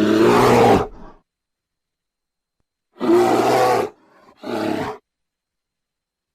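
Brown bear roaring: one loud roar of about a second at the start, then after a silent gap a second roar about three seconds in, followed closely by a shorter, quieter one.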